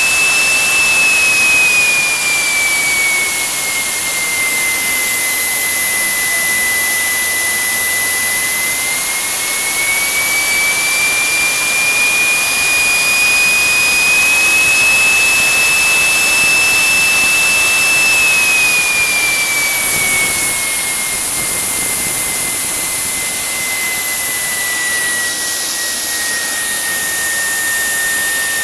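JetJoe 1400 model jet turbine engine running at around 148,000 rpm: a loud, steady high whine over a strong rushing hiss. The pitch dips a little early on, climbs back, then sinks slowly through the last ten seconds as the engine speed eases.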